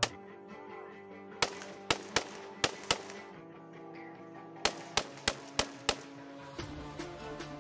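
Gunshots over background music: one shot at the start, then two quick strings of five shots each, about a third of a second apart, separated by a pause of under two seconds.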